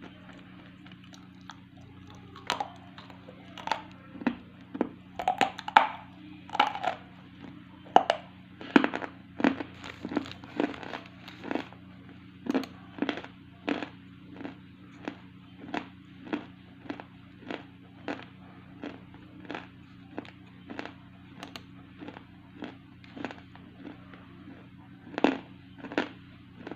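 A long series of sharp taps or cracks, about one to two a second and unevenly loud, over a steady low hum.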